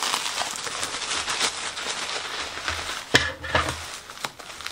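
Bubble wrap crinkling and crackling as it is handled and pulled off a packed pot, with a couple of louder knocks about three seconds in.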